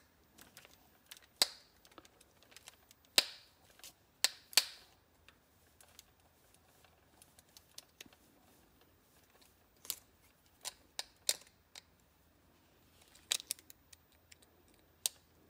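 Thin metal tool clicking and scraping against the circuit board and plastic earcup shell of a Soundcore Life Q20 headphone while prying the chip board out. The sharp clicks come irregularly, with quiet gaps between them.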